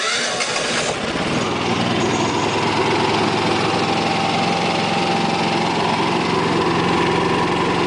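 Yamaha generator started by remote: its electric starter cranks for about a second, then the engine catches and runs steadily.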